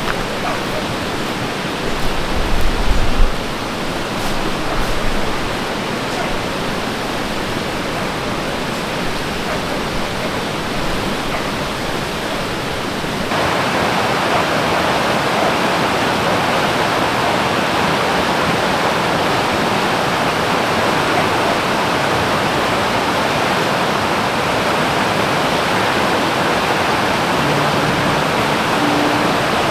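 Stream water rushing steadily, with a brief low rumble about two to three seconds in. About thirteen seconds in, the rushing abruptly becomes louder and brighter.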